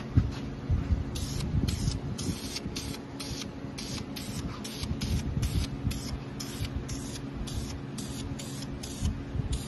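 Aerosol spray can fired in short, rapid bursts, about two to three hisses a second, starting about a second in, over a steady low hum.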